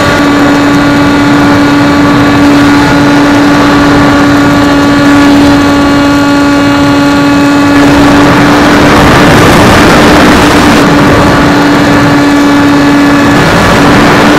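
Electric motor and propeller of an AXN Floater Jet foam RC plane running at a steady high whine, heard from the onboard camera with loud wind rush on the microphone. About eight seconds in the whine's overtones fade and the wind rush grows as the plane noses over, and near the end the motor tone cuts out briefly and comes back.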